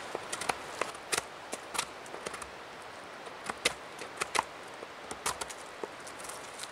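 Knife prying and splitting dry wood from a dead stump: a string of irregular sharp cracks and snaps, the loudest a little over halfway through.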